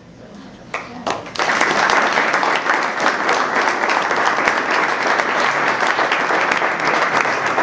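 Audience applause at the end of a talk: a few scattered claps about a second in, then sustained, steady clapping from many hands.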